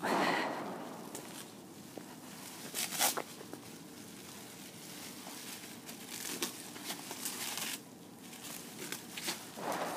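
Wrapping paper crinkling and tearing as a large roll of firecrackers is unwrapped by hand, in short irregular rustling bursts. The loudest come right at the start and about three seconds in.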